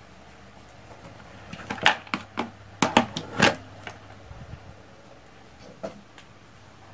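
A quick run of about seven sharp clicks and knocks, then one softer click about two seconds later.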